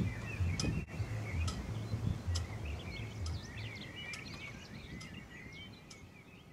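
Birds chirping and calling over a low outdoor rumble, the whole sound fading out steadily toward the end.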